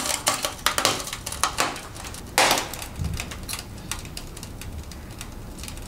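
The smashed glass of a CRT picture tube crackling as broken fragments settle, in irregular sharp clicks, with one louder crackle about two and a half seconds in.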